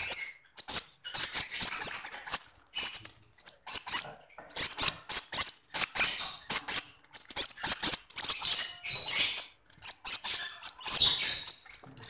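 Lovebird chicks giving rapid runs of short, raspy, high-pitched begging squeaks.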